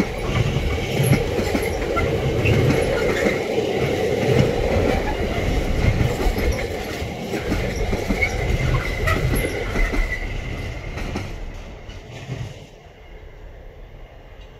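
Freight train of container flat wagons rolling past: low rumble and clatter of wheels on the rails, with a thin steady wheel squeal. The sound fades as the last wagons go by and drops away sharply about two seconds before the end.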